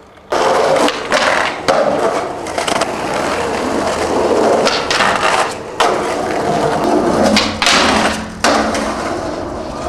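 Skateboard wheels rolling loudly over rough pavement close by, broken by sharp clacks and scrapes of tricks on a concrete ledge.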